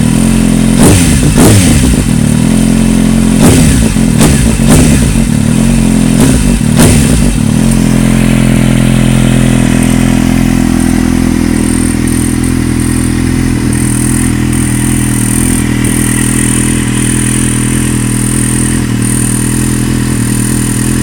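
2008 Kawasaki Z750's inline-four engine through a slip-on Akrapovic exhaust, blipped with about six short throttle revs over the first seven seconds, then settling to a steady idle.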